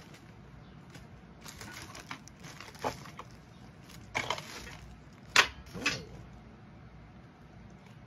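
Hands rummaging through workshop parts in search of small screws: rustling, with several sharp knocks of hard items being moved, the loudest about five and a half seconds in.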